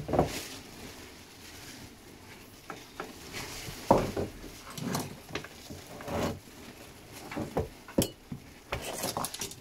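Irregular clunks, knocks and clicks of objects being handled and set down, the loudest knock about four seconds in and a sharp click about eight seconds in.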